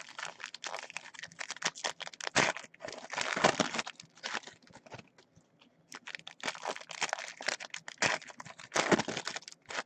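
Foil trading-card pack wrappers being ripped open by hand and crinkled, in two long stretches of crackling and rustling with a brief lull about halfway through.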